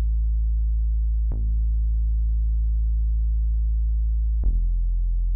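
Crunk-style synth sub-bass loop auditioned on its own: long held deep notes, each opening with a short bright attack. A new note starts about a second in and a lower one about four and a half seconds in.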